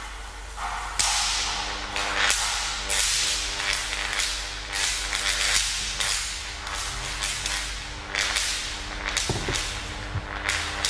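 High-voltage flashover arcs cracking sharply and repeatedly across a disc insulator during a dry power-frequency flashover test, irregularly about one or two cracks a second, over a steady low hum.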